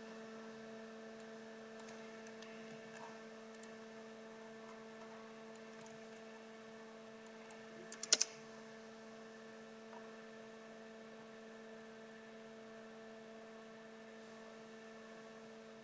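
Faint, steady electrical hum with a few even overtones. About eight seconds in comes a quick cluster of computer keyboard clicks, with one or two fainter clicks elsewhere.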